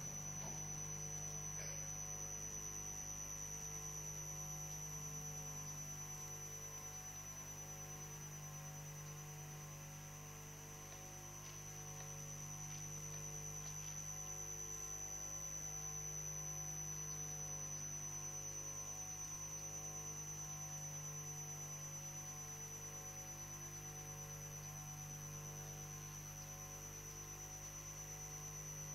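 Steady electrical mains hum with a thin, steady high-pitched whine above it; no room sound comes through.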